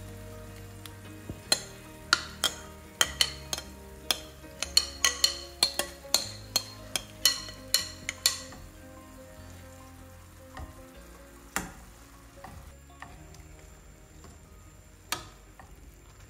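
Oil frying under tomato slices in a nonstick pan as egg-and-breadcrumb batter is poured in, with a quick run of sharp clicks and pops for the first several seconds, then only a few scattered ones.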